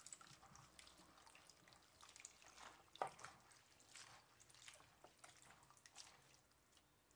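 Hands swishing and rubbing napa cabbage leaves in a glass bowl of water: faint splashing and dripping, with one louder splash about three seconds in.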